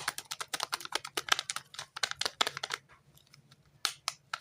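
Soap packaging being handled and unwrapped: a fast run of crisp clicks and crinkles for nearly three seconds, then a few scattered clicks.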